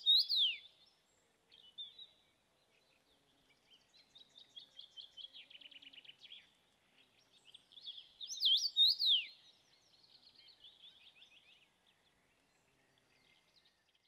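Male common rosefinch singing its short whistled song of slurred, rising-and-falling notes. One phrase comes right at the start and another about eight seconds in. Fainter, fast runs of repeated notes fill the gaps between phrases.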